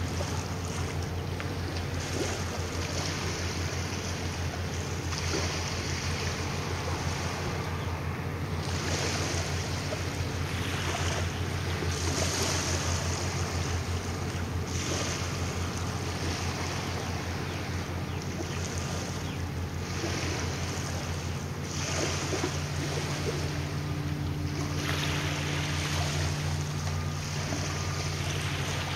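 Ferry's diesel engines running with a steady low throbbing hum, a held tone entering about three quarters of the way through. Gusts of wind buffet the microphone every few seconds.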